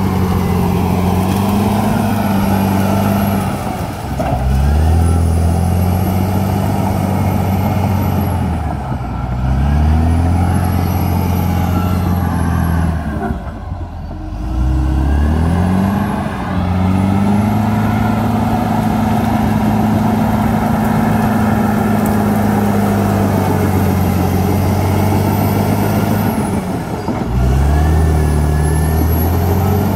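CAT D7R crawler dozer's diesel engine working under load while pushing brush. The engine speed sags and climbs back up several times, about 4, 9, 14 and 27 seconds in, with a faint high whine rising and falling along with it.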